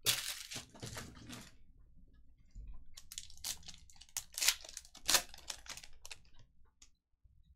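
Foil trading-card pack wrapper being torn open and crinkled by hand: runs of crackling rustle with a short lull about two seconds in, the sharpest tears about four and five seconds in.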